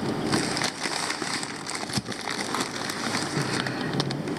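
Packaging being handled: plastic fish-shipping bags and wrapping crinkling and rustling in irregular crackles, with one sharper crackle about two seconds in.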